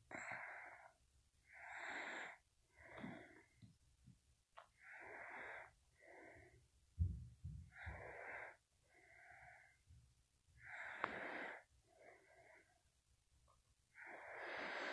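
A person's faint, noisy breathing close to the microphone, breaths in and out in pairs every second or two. A soft bump sounds about halfway through.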